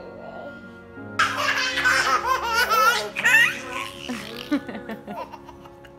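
A baby laughing, a burst of giggles that starts about a second in, is loudest for a couple of seconds and then trails off, over background music of soft held notes.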